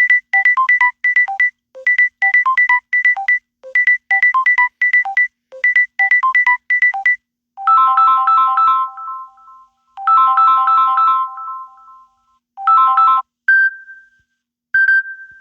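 Samsung Galaxy A50 ringtones played one after another: a short electronic beeping melody repeated four times, then a different chiming pattern of stacked notes played three times, then two single chime tones.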